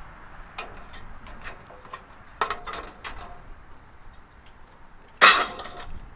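Scattered light metallic clinks and knocks from tools and material being handled, with a louder ringing clink about five seconds in.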